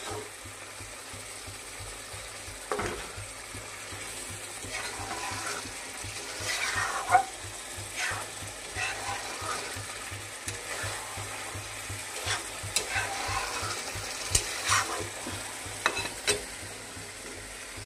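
Rohu fish jhal sizzling in hot oil in a pan while being stirred, a steady sizzle with a utensil scraping and clinking against the pan now and then.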